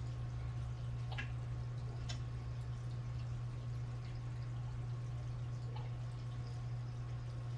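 A steady low hum, with a few faint clicks about one, two and six seconds in.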